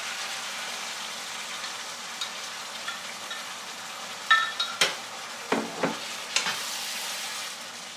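Beef sizzling as it fries in a hot nonstick pan while seasoning sauce is poured in. About four seconds in there is a short clink from the glass bowl, then a wooden spatula scrapes and knocks against the pan as the meat is stirred.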